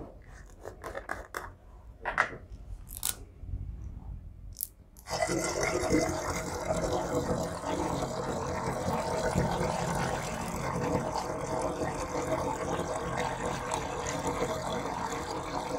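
Plastic juice bottle's cap twisted off with a few clicks and crackles, then, about five seconds in, juice pouring steadily from the bottle through a silicone funnel into a glass gallon jug.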